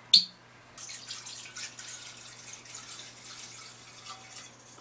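A short sharp click, then whisky pouring from a bottle for about four seconds, a dram added to the haggis.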